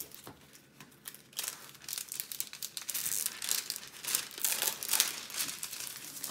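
Clear plastic cover film being peeled back from the sticky face of a diamond painting canvas, crinkling and crackling. The crinkling starts about a second in and carries on in quick, irregular crackles.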